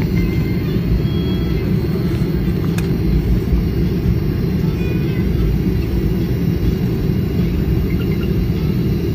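Steady low rumble inside the cabin of a jet airliner taxiing on the ground after landing.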